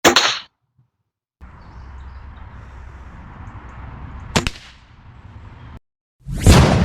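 Air rifle shooting an exploding flashbang pellet coated with match-head sulfur and super glue: a short sharp bang at the start, a thin crack about four seconds later, and a loud bang with a ringing tail of about two seconds near the end. A steady low noise runs between them and starts and stops abruptly.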